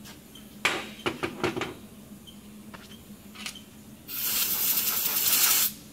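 Metal clattering and knocking as a steel CNC tool holder with a cobalt drill bit is set down among tools on a steel workbench, then a loud steady hiss lasting about a second and a half that cuts off suddenly near the end.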